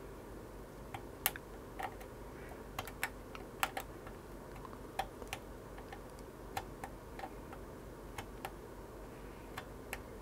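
A small blade scraping and nicking at the copper trace across a solder jumper on a circuit board to cut it: a scattering of faint, irregular little clicks.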